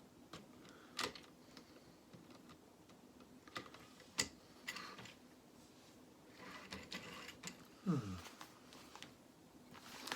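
Lego plastic pieces clicking and rattling as parts of a Lego City train are handled and pressed together: scattered sharp clicks, with a quick run of small clicks a few seconds before the end.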